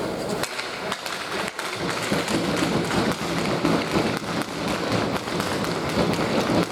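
Ice hockey rink noise: many irregular sharp taps and knocks from hockey sticks, pucks and skates on the ice and boards, over a steady rink din.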